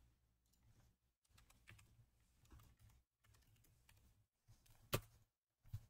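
Faint typing on a computer keyboard, with two sharper clicks near the end.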